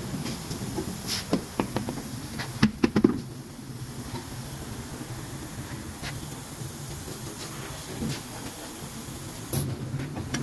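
A road wheel coming off a Toyota Land Cruiser's hub: a string of metal knocks and clanks, loudest about three seconds in, with a few more near the end, over a steady hiss.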